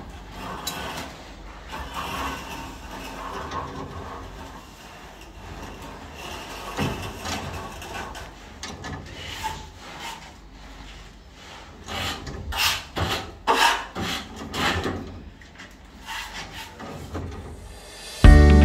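Hand work on the threaded end of a steel heating pipe: hemp fibre and PTFE tape being wound onto the thread and a plug fitted, heard as soft, irregular rubbing and scraping, with a few louder scrapes in the last third. Music starts suddenly at the very end.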